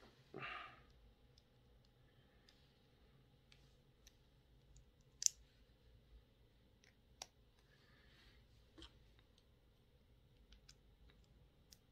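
Small plastic Lego pieces clicking and tapping as they are handled and pressed together: sparse, faint clicks, the sharpest one about five seconds in, with a brief rustle just after the start.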